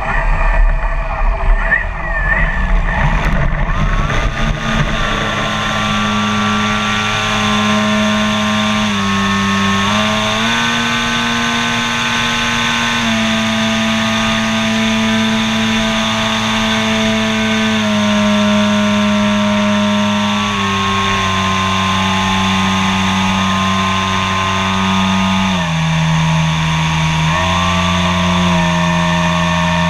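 Radio-controlled model airplane's engine heard from a camera mounted on the plane. For the first few seconds it rumbles and bumps across grass on the take-off run. It then runs at a steady pitch in flight, shifting up and down in steps several times as the throttle is changed.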